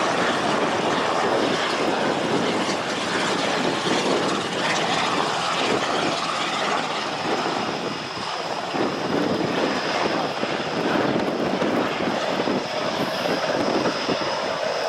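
Close-range, steady running of turboprop aircraft engines, the C-160 Transall's Rolls-Royce Tyne turboprops, with a thin high whine joining in about two-thirds of the way through.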